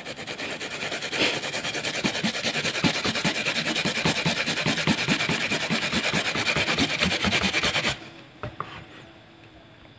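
Peeled taro root rasped back and forth on a wooden-framed hand grater in quick, even strokes. The grating stops about eight seconds in.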